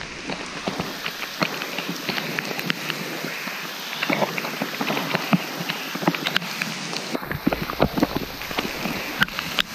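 Heavy rain pouring down onto a lake surface and the leaves of bankside bushes: a steady hiss dotted with many sharp, close drop hits.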